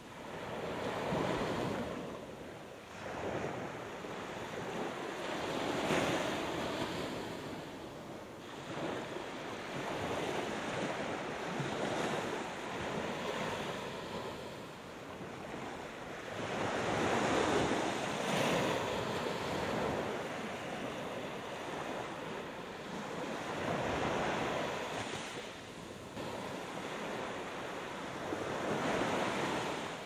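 Small Gulf of Mexico surf breaking and washing up a sandy beach. The hiss of the waves swells and fades every five or six seconds.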